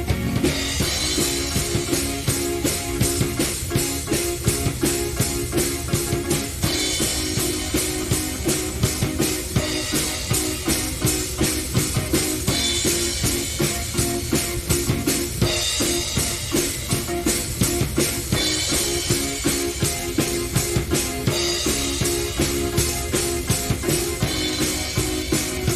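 Keyboard-and-drums progressive rock jam: a drum kit plays a busy, steady beat with cymbal washes every few seconds, over a repeating held keyboard figure.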